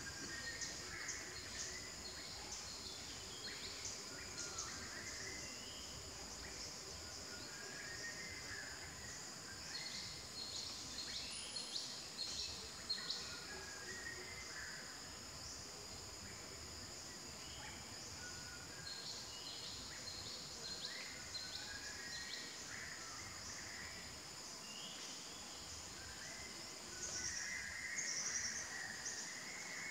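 Tropical tree-canopy ambience: a steady high-pitched insect drone with many short bird chirps scattered through it, the calls a little louder near the end.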